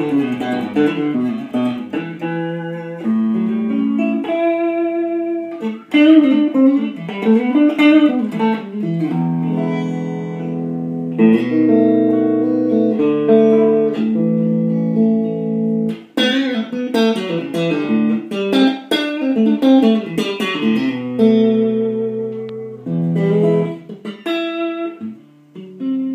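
A 1987 USA-made Fender Stratocaster electric guitar being played: a continuous run of chords and single-note lines, with sharp picked attacks and the hardest hits about six and sixteen seconds in.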